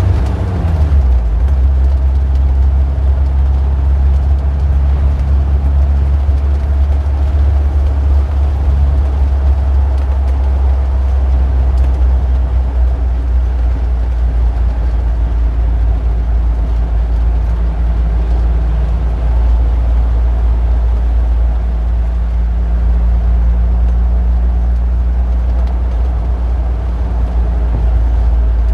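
Street traffic: a steady, deep engine rumble from passing motor vehicles, with one engine's pitch dropping in the first second and other engine tones shifting now and then.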